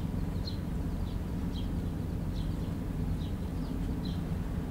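Steady low machine hum, like a running engine, with a small bird's short high chirp repeating about twice a second over it.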